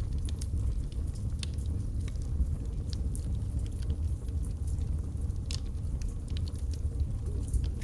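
Wood fire burning in a fireplace: a steady low rumble of the flames with irregular sharp crackles and pops from the logs, one louder pop about five and a half seconds in.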